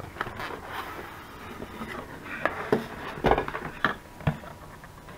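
Cardboard packaging being handled as a microphone is pulled out of its box: rustling and scraping, with several short sharp taps and clicks between about two and a half and four and a half seconds in.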